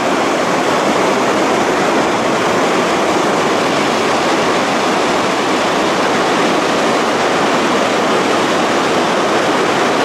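Latefossen waterfall pouring down over rocks in full flow: a loud, steady rush of white water, heard up close from within its spray.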